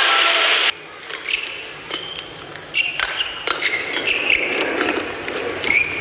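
A badminton rally: sharp racket strikes on the shuttlecock and short, high squeaks of shoes on the court, several times. Under a second in, arena crowd noise cuts off suddenly.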